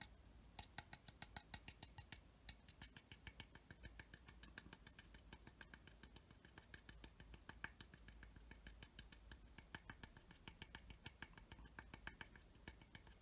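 Faint, quick ticking of a cut-down stiff bristle brush stabbing oil pastel onto a plastic model aircraft's surface, several light taps a second.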